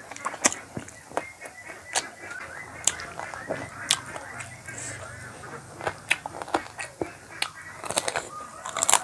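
Close-up eating sounds: wet chewing and lip-smacking with sharp mouth clicks, a person eating chicken curry and rice by hand.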